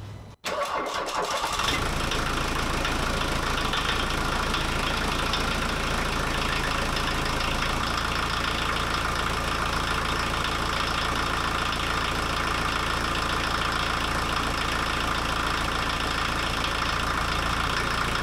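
Mk1 Volkswagen Rabbit's turbodiesel engine, fitted with a VNT turbo, cranking briefly on the starter and catching about a second and a half in, then idling steadily.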